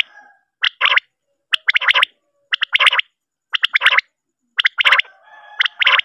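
Male common quail (batair) calling: short, sharp notes in quick groups, one group about every second.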